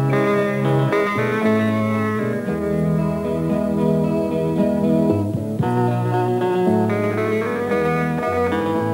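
Instrumental guitar music: held chords over a bass line that changes every second or so.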